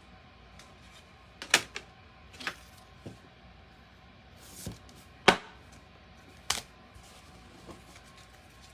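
Baseball trading cards being handled and flipped through by hand, with about seven sharp card slaps and slides at irregular intervals. The loudest comes a little past five seconds in.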